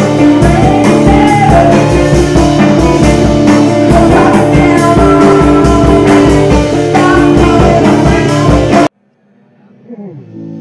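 A rock band playing loud: electric guitar over an electronic drum kit with a steady beat. About nine seconds in the band stops dead, and a quieter held guitar note with a downward slide rings on and swells.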